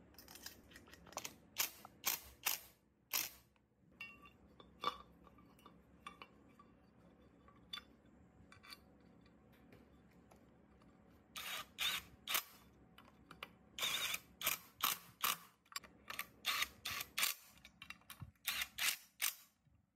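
Hand tools working on a Honda Super Cub C50 engine, making runs of sharp clicks a few a second: a short run near the start, another just past the middle, and a longer one through the last third.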